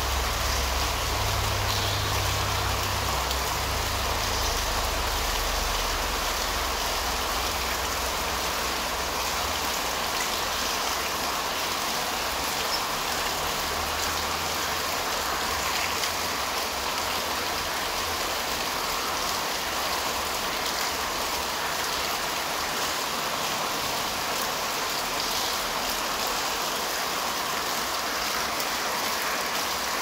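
Heavy rain falling steadily on leaves and the ground: a constant, even hiss and patter. A low rumble underneath is strongest in the first few seconds, then fades.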